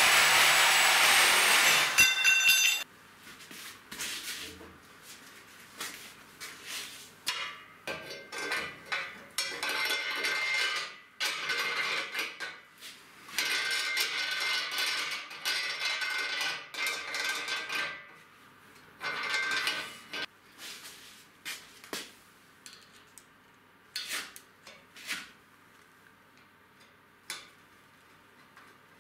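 Reciprocating saw cutting 5 mm steel plate for about two seconds, then stopping abruptly. This is followed by bursts of metallic scraping and clinking as a long threaded rod is handled and slid through the steel frame, with a few lighter clicks near the end.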